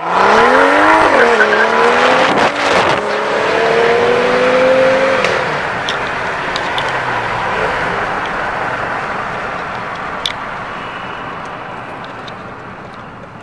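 BMW F87 M2's turbocharged straight-six breathing through an Fi valvetronic catback exhaust with quad tips, accelerating hard: the note climbs, drops at an upshift about a second in, gives a short burst of noise around two and a half seconds, then climbs slowly again. About five seconds in the engine note fades out, leaving steady road noise as the car pulls away.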